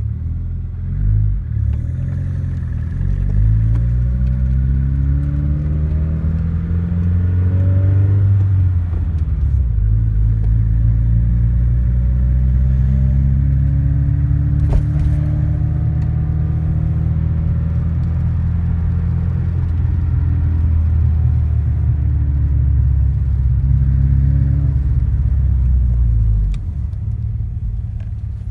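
Car engine revved up from idle, held at raised revs for a long stretch, then let fall back to idle near the end; the owner takes its knock for piston slap in a new engine.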